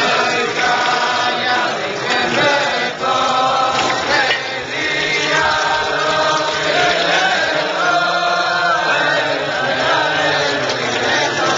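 A large group of men chanting a melody together in unison, many voices blending into one sustained tune.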